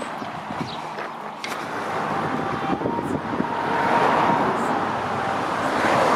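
Road traffic noise, with passing vehicles swelling about four seconds in and again near the end.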